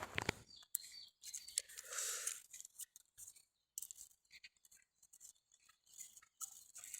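Faint, scattered clicks and light clatter of small plastic Lego pieces, with a few brief soft rustles.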